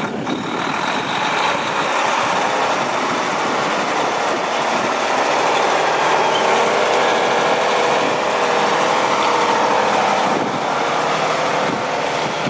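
2012 Mack CXU613 tractor's diesel engine running steadily.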